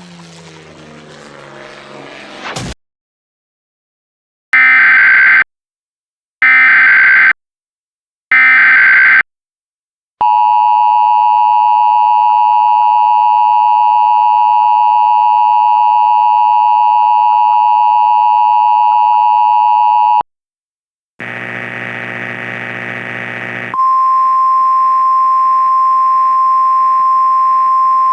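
Emergency Alert System header and alert tones. After some other audio cuts off, three identical short bursts of screechy header data sound about two seconds apart. Then the two-tone attention signal holds steadily for about ten seconds and stops. After a second's pause a harsh buzzing starts, and about two and a half seconds later a single steady high tone comes in over a faint hiss.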